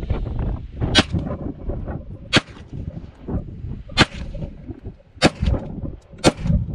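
FN Hi-Power semi-automatic pistol firing a slow string of single shots, roughly one every second or so, each a sharp crack.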